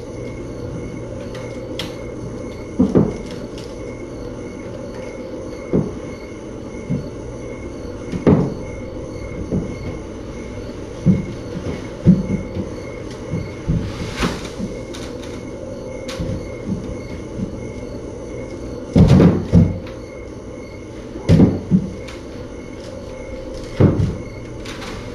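Irregular knocks and bumps, about a dozen, over a steady low hum, the loudest a quick cluster about three-quarters through.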